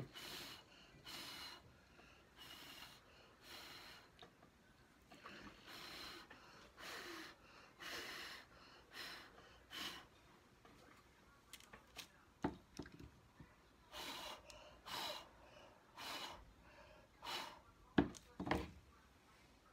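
A person blowing hard through the mouth to push wet acrylic paint across a canvas in a Dutch pour: a string of short breathy puffs, about one a second, with a pause past the middle. A few short knocks near the end.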